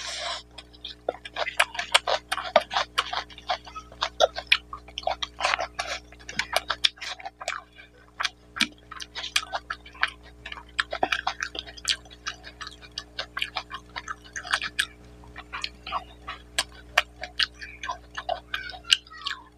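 Close-miked mouth sounds of someone eating rice and mutton curry: a fast, irregular run of wet clicks and lip smacks from chewing.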